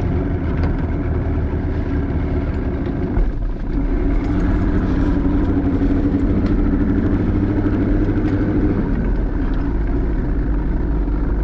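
Boat motor running steadily under way. The engine note dips briefly about three seconds in, then picks up again.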